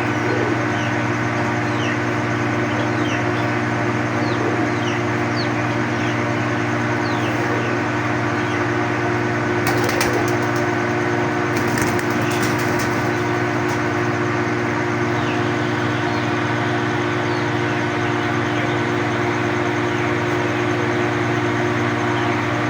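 Ducklings peeping, many short high chirps throughout, over a steady mechanical hum. A brief run of sharp clicks comes about ten to thirteen seconds in.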